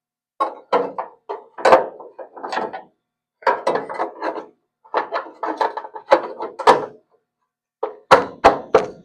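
Irregular clusters of knocks and clanks from a steel torque-box panel being handled and test-fitted into the car's body, with a few hard knocks near the end.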